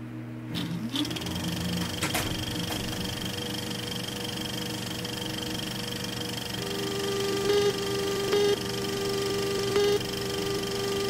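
Electronic hum and steady tones, with a short rising glide about a second in and a click soon after. About two-thirds of the way through, a louder steady tone joins, broken by short beeps every second or so, like a telephone line signal.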